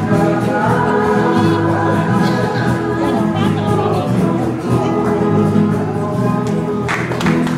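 Choir singing an Indo song with a small band of guitars, steel guitar and bass guitar. Applause breaks out near the end.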